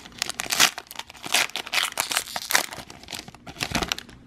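Foil wrapper of a Pokémon trading-card booster pack crinkling in irregular crackles as it is torn open and handled by hand, easing off near the end.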